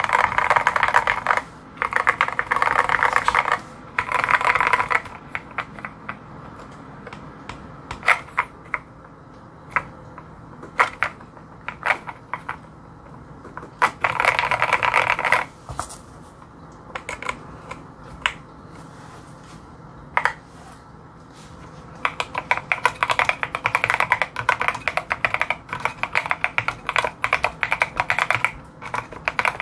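Typing on a WKL Mysterium tenkeyless mechanical keyboard with lubed and filmed Gateron Ink Black linear switches: fast runs of keystrokes, broken in the middle by slower single key presses and then a long fast run near the end.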